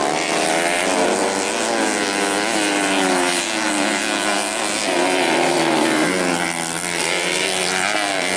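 Several dirt bike engines running at once, their pitch rising and falling as the riders open and close the throttle around the dirt track.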